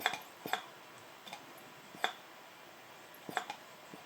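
A few short, sharp clicks, spaced irregularly, from a hand vacuum pump being worked on a BV43 turbo's vacuum actuator while it holds vacuum against its stop.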